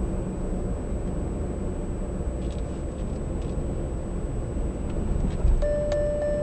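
Car driving, heard from inside the cabin: steady road and engine rumble. About five and a half seconds in there is a thump as the tyres cross a joint onto the steel bridge, followed by a single electronic beep lasting about a second.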